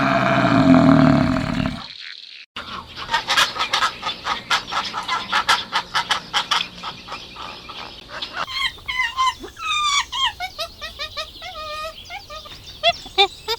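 Bird calls, one clip after another: a loud call ends about two seconds in, then about six seconds of rapid clucking-like calls, then a run of short chirps that slide in pitch.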